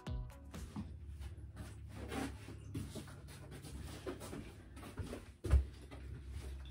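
A low steady hum with faint, irregular rustling and handling noises, and one sharp thump about five and a half seconds in.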